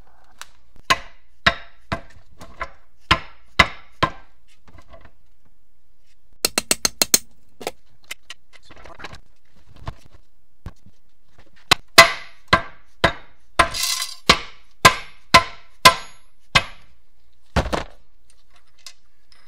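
Hammer blows on a Getrag HM290 five-speed transmission case, knocking the two case halves apart. There are about six blows, a quick run of five light clicks, then about ten harder blows in a row.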